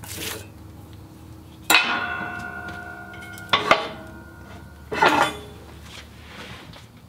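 Heavy steel pressing blocks clanking against each other and the press table as they are lifted off a cured carbon fiber layup. There are several knocks: one about two seconds in rings on for a second or two, then two close together, then one more.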